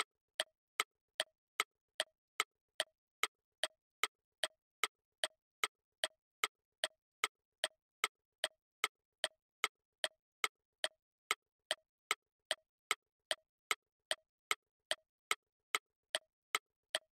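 Clock-ticking sound effect counting down the answer time, with sharp, even ticks at about two and a half a second.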